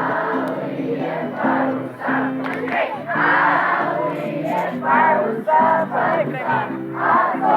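Music with a repeating pattern of low held notes, and a crowd of children's voices shouting and singing along over it, louder from about three seconds in.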